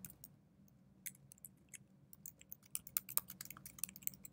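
Typing on a computer keyboard: quick, irregular keystroke clicks as a line of text is typed, starting about a second in after a brief pause.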